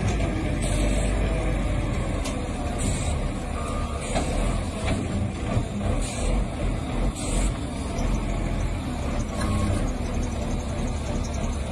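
Wheel loader's diesel engine running with a steady low rumble as the machine works close by.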